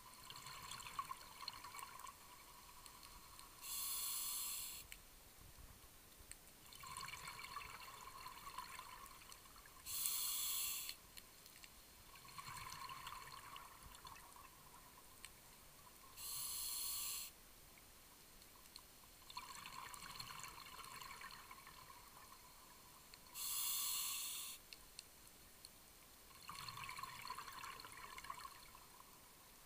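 A scuba diver's regulator breathing cycle underwater: four sharp hissing inhalations through the demand valve, each about a second long, alternating with longer bursts of exhaled bubbles, one breath roughly every six and a half seconds.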